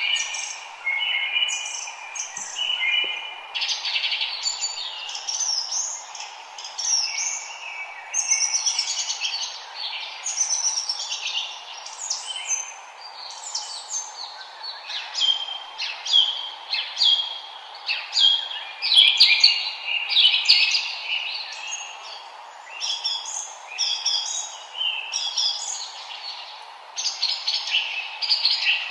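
Several songbirds singing and chirping at once in a chorus of overlapping quick, high trills and whistles, with a faint steady hiss of background noise beneath.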